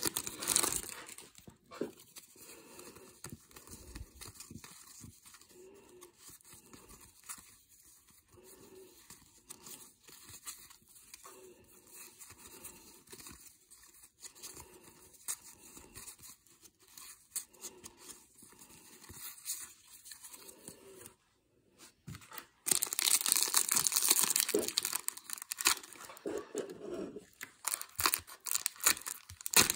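Silver foil wrapper of a 1991 NFL Pro Line card pack crinkling as it is torn open. This is followed by softer rustles of trading cards being slid through one at a time. Near the end comes the loud crinkle and tearing of the next foil pack being opened.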